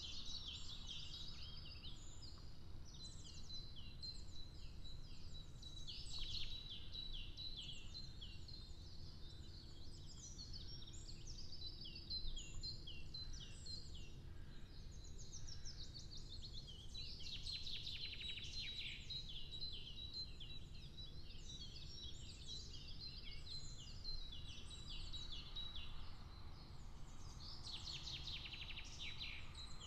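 Songbirds chirping and singing, many short high notes in quick runs throughout, over a steady low rumble of outdoor background noise.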